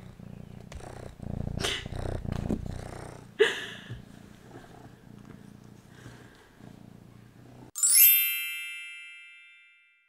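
A kitten purring close to the microphone, with some rustling and a short sharp sound about three and a half seconds in. Near the end a bright chime rings out, the loudest sound, and fades away over about two seconds.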